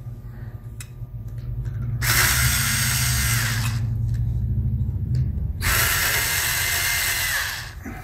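Electric screwdriver running in two spurts of about two seconds each, backing the screws out of a 2.5-inch laptop hard drive's mounting caddy.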